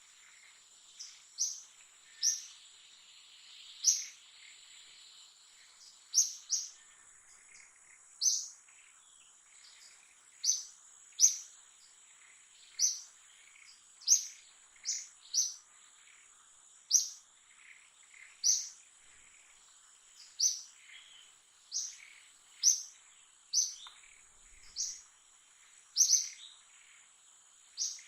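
A bird repeating a short, sharp, high chirp about once a second, over a steady high-pitched insect whine.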